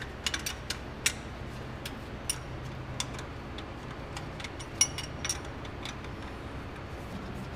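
Scattered light clicks and small knocks of hand work in the engine bay as the PCV valve hose is worked loose around the carburetor and valve cover, over a low steady hum. One sharper knock stands out a little before five seconds in.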